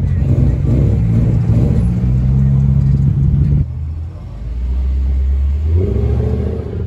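Subaru WRX STI's flat-four engine running at low revs as the car pulls past. Partway through it cuts to a quieter, deeper engine rumble, which picks up again briefly near the end.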